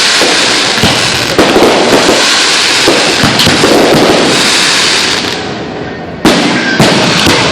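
Aerial fireworks display: a dense run of crackling and booming shell bursts that fades about five seconds in, followed by two sharp bangs near the end.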